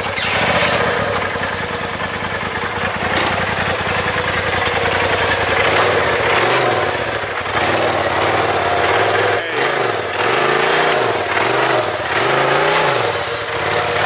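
Polaris RZR Turbo S side-by-side's engine running low and steady, then revved in short blips that rise and fall about once a second as the machine is driven slowly up onto a trailer.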